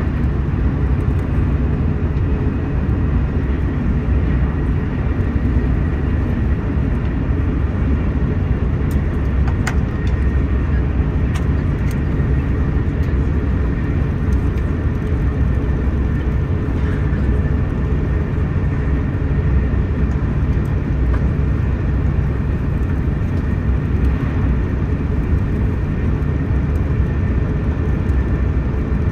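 Steady low rumble and rush of a TGV high-speed train running at speed, heard from inside the passenger cabin, with a few faint clicks near the middle.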